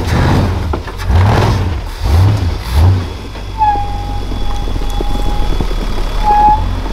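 Rock-crawling Jeep buggy's engine revving in short bursts three or four times as it claws up a snowy slope, then holding a steady drone. A thin steady whine sounds for about three seconds in the middle.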